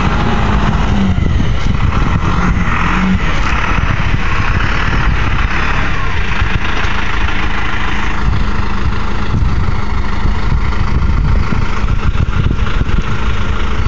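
John Deere utility tractor's diesel engine running steadily.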